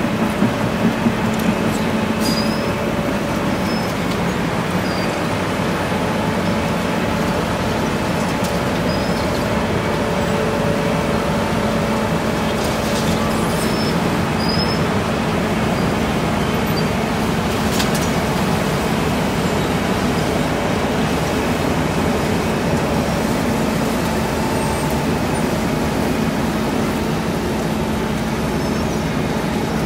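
Wirtgen cold milling machine at work: its diesel engine running under load while the cutting drum grinds the old asphalt off the street. A loud, steady mechanical din with a held engine tone and a few sharp knocks.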